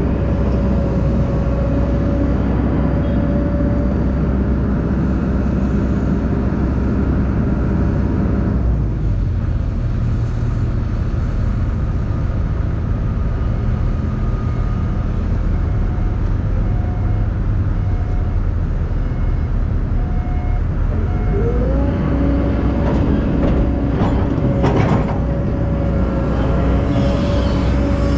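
Diesel engines of heavy earthmoving machinery running steadily with a low rumble and a held tone. About 21 seconds in, the engine note rises and holds, as if under load. A few sharp clanks follow near the end.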